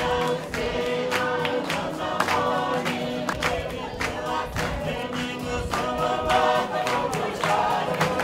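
Music: a group of voices singing in harmony over a steady beat.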